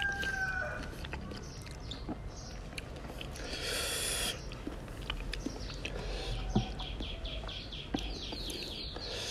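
Rooster crowing, its call trailing off and falling in pitch about a second in. Then a moderate background with a few light clicks, and a quick run of short high chirps near the end.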